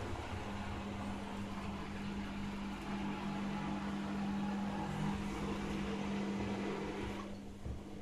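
Candy GrandO Plus front-loading washing machine spinning its drum at a steady speed, with a steady motor hum under a whooshing rush. About seven seconds in, the higher whooshing drops away abruptly while the hum carries on.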